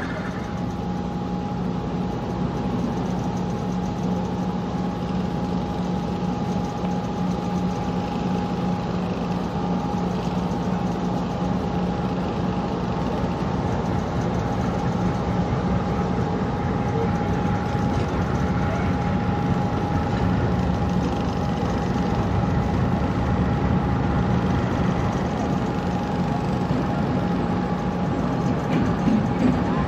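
Diesel locomotive engine running at low power, a steady hum with a constant higher whine. It grows a little louder near the end as the locomotive creeps closer.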